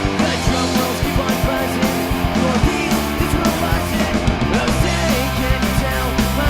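Amateur rock band playing live: held guitar and bass chords over steady drum hits, in a punk-rock style.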